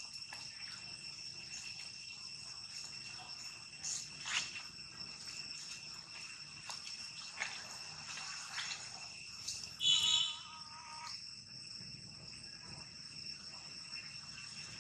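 Steady high-pitched insect chorus, several shrill tones held throughout, with scattered short chirps and one louder call lasting about a second around ten seconds in.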